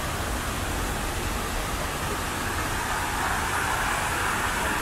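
Steady rushing outdoor city noise with a low rumble underneath, growing a little louder and brighter about three seconds in.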